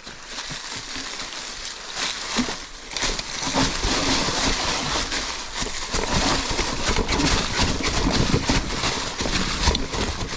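A mountain bike riding over a rocky trail: a steady crunching and clattering of the tyres on rock, with many small knocks from the bike. It gets louder about three seconds in.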